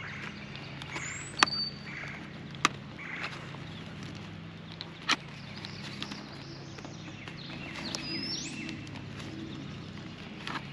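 A few sharp plastic clicks as a helmet cheek pad is pressed and snapped into place in a Shoei Neotec 2 shell, three of them spread over the first five seconds. Birds chirp briefly in the background over a steady low hum.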